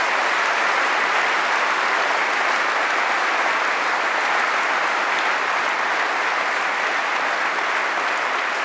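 A large seated audience applauding steadily, a dense, sustained clapping that holds at an even level.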